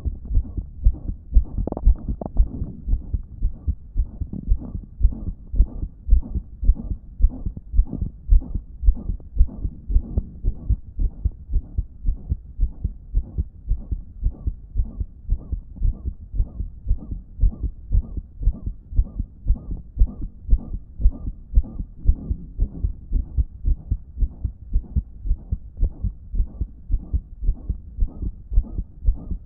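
Human heartbeat with a loud blowing heart murmur: regular beats, about two a second, with a whooshing sound between them. It is the sign of a damaged heart that, in its owner's words, wasn't pumping effectively.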